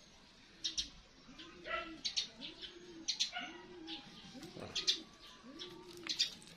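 A dove cooing over and over, about one arched coo a second, with small birds chirping.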